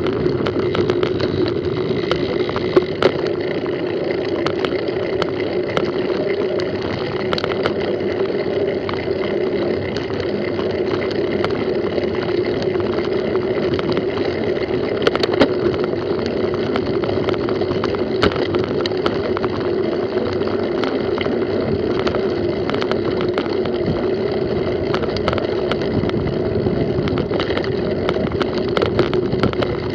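Mountain bike ridden over a bumpy dirt track: steady rolling noise from the knobby tyres, with frequent small clicks and rattles from the bike over the bumps.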